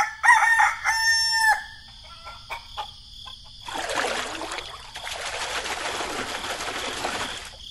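A rooster crows once, a rising call that ends in a long held note. A few light clicks follow, and from about four seconds in there is a steady splashing of water that stops near the end.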